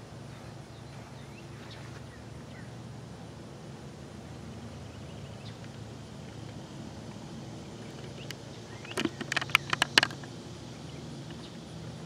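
Outdoor ambience with a steady low hum and faint bird chirps. About nine seconds in, a rapid run of about ten sharp clicks lasts about a second.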